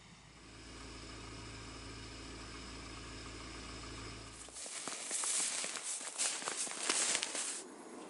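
An SUV's engine running with a steady low hum, which cuts off about four and a half seconds in. Then about three seconds of loud crunching and crackling from its BFGoodrich tyres on snow, which stops abruptly.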